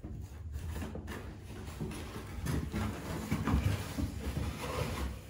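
A cat shifting and climbing inside a cardboard box: scraping and rustling on the cardboard, with soft bumps and thumps in the middle as it pulls itself up to the rim.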